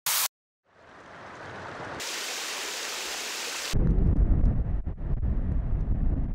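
Sound-design noise on an edited soundtrack. A short sharp burst of static comes first, then a hiss that swells in and turns suddenly brighter about two seconds in. Near four seconds it gives way to a louder low rumble with scattered crackles.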